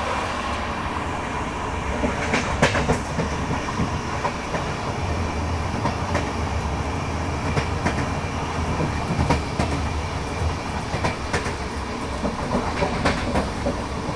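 Running noise of an LHB passenger coach heard from between two coaches, open to the track: a steady rumble and hiss of wheels on rail, broken by sharp, irregular clicks and knocks, the loudest a little over two seconds in.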